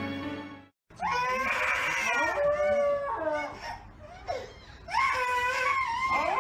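Music fades out in the first second. Then a husky-type dog howls and 'talks' in long, wavering calls that slide up and down in pitch, in two stretches with a short lull between them.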